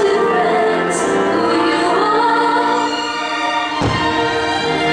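Orchestral music with a choir singing held notes, the fireworks show's soundtrack, with one sharp firework bang nearly four seconds in.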